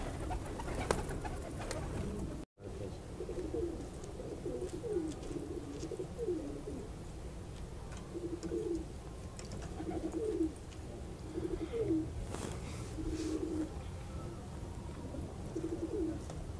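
Young domestic pigeons cooing: a string of short, low coos, about one a second, some swooping in pitch.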